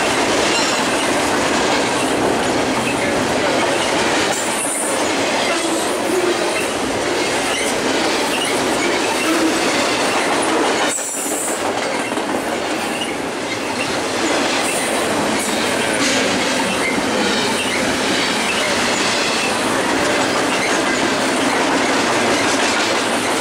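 Double-stack container train's freight cars rolling past at speed, steel wheels running on the rails with a steady, dense clatter. The sound briefly dips about halfway through.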